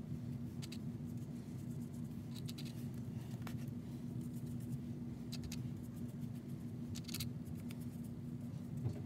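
Soft scratchy strokes of a small watercolour brush on journal paper, a handful of short dry ticks a second or two apart, over a steady low room hum with a faint constant tone.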